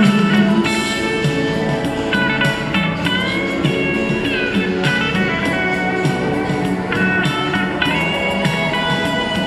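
Instrumental interlude between sung verses: backing music with a guitar lead melody that slides between some notes, over a steady accompaniment.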